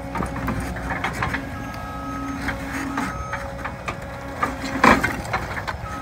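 Hydraulic breaker on a compact track loader hammering a concrete foundation, with irregular sharp impacts and cracking of concrete over the loader's steady diesel engine; the loudest crash comes just before five seconds in.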